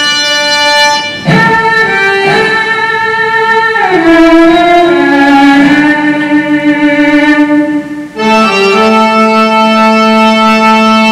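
Bayan (Russian button accordion) and Yamaha cello playing a live duet: sustained bayan chords under a bowed cello line that slides down between notes. The music breaks off briefly about a second in and again near eight seconds.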